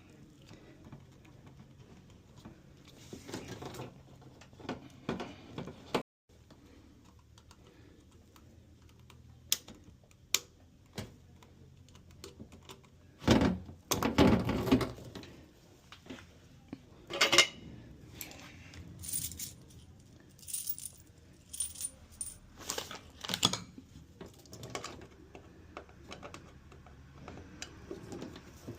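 Small metal parts and tools clinking and clattering during hands-on repair work, with a few louder knocks and clanks partway through.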